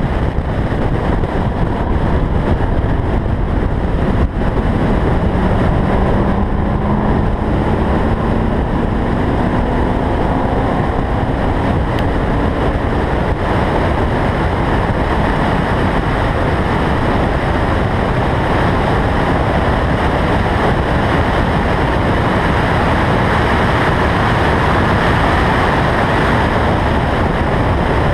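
A car at speed heard from a camera mounted on its roof: a loud, steady rush of wind over the microphone. From about five seconds in, the engine note can be made out climbing slowly in pitch for several seconds as the car accelerates.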